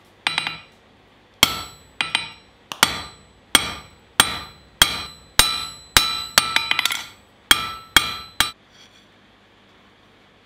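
Blacksmith's hand hammer striking red-hot 15 mm square steel bar stock on an anvil: about a dozen ringing blows at an even pace, with a quick run of lighter taps partway through. The blows stop shortly before the end.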